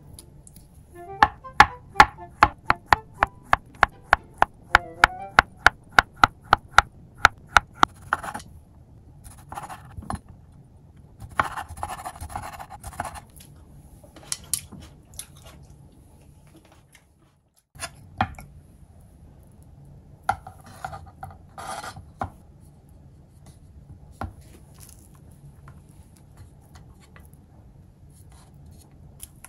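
Kitchen knife slicing an avocado on a wooden cutting board: a quick, even run of sharp knocks, about three a second, for several seconds. It is followed by scattered softer knife taps and handling rustles on the board.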